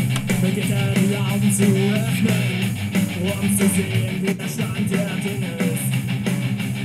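Rock music with electric guitar and strong bass playing through a 2.1 soundbar and its wireless subwoofer.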